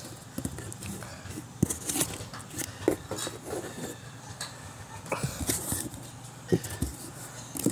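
Cardboard shipping box being handled and opened by hand: irregular scrapes and rustles with a few sharp knocks scattered through.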